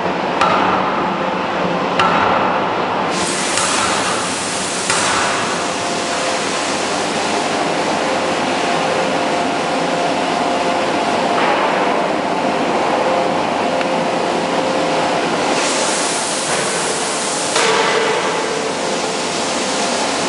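C90-250kJ fully hydraulic 10-ton closed die forging hammer working a hot forging: a steady loud machine din with hiss, a few sharp knocks in the first five seconds, and surges of hiss about three to five seconds in and again about sixteen to eighteen seconds in.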